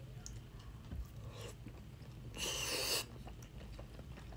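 Close-miked chewing of a Sun Chip loaded with guacamole, salsa and queso: soft crunching and wet mouth clicks. A brief, louder rush of air comes about two and a half seconds in.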